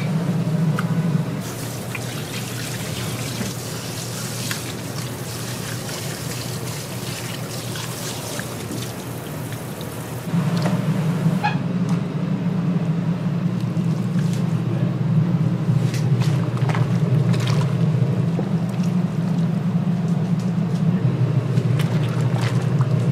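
Liquid pouring and trickling, over a steady low hum that drops out about a second in and comes back about ten seconds in, with scattered clicks.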